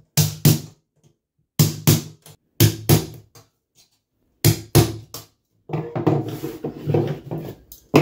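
Hammer striking a punch held against an aluminium Zee Bar carpet trim on a board floor: sharp blows in quick pairs and threes. Near the end comes a stretch of rattling and scraping as the metal bar is handled, then one more hard knock.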